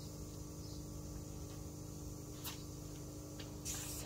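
Submersible water-feature pump (AP3000) running with a faint, steady hum, pushing water into newly plumbed lines with all the taps shut. There is a click about two and a half seconds in, and near the end a hiss of water spraying from a leak in the fittings.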